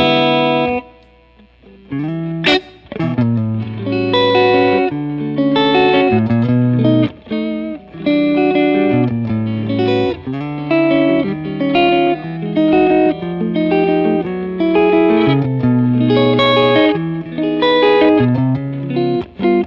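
Warmoth '72 Telecaster Deluxe-style partcaster electric guitar with a two-piece alder body, played clean through a miked amplifier. It plays a run of picked notes and chords, with a brief pause about a second in.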